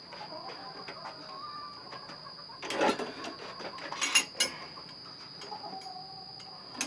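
Steel 330 conibear body-grip trap clanking as it is handled at a bench vise: two short bursts of metal knocks and rattles, about three and four seconds in.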